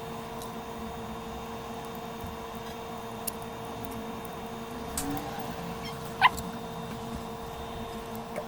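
Steady hum of bench equipment during board repair work. A few light tool clicks, and one short, high, pitched squeak about six seconds in, the loudest sound.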